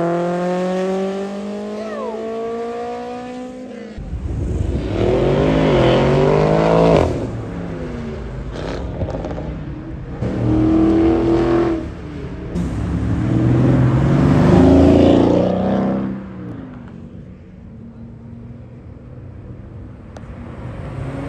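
Sports car engines accelerating hard one after another. First a Honda S2000's four-cylinder climbs steadily in pitch for about four seconds as it pulls away, then several more engines rev in bursts of a few seconds each, with a quieter stretch shortly before the end and another engine winding up at the close.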